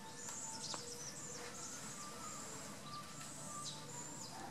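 Birds chirping: many short, high-pitched notes, some sliding sharply downward, with a few lower short calls, over a steady faint outdoor background.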